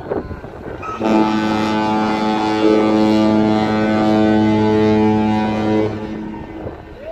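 Cruise ship's horn sounding one long, deep, steady blast of about five seconds, starting about a second in.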